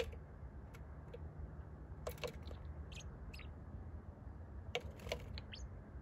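A bird tapping at a pickup truck's side mirror and window glass: scattered sharp taps, two pairs of them about 2 and 5 seconds in. A few short, high chirps are heard between the taps.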